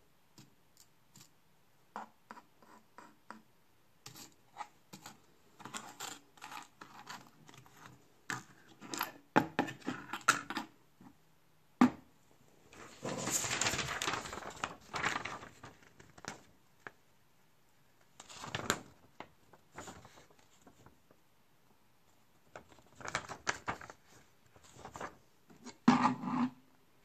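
Handling noises on a wooden workbench: tweezers and small electronic parts clicking, tapping and scraping against a circuit board and the wood. There is a longer rustle about 13 seconds in and a louder cluster of knocks near the end as the glass bulb is handled.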